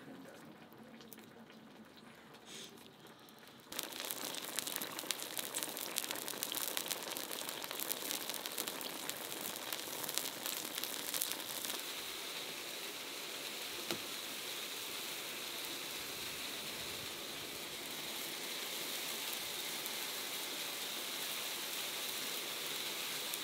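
Food frying in a wok over a wood fire. It starts about four seconds in as a crackly sizzle with many small pops and spatters, then settles into a steadier sizzle.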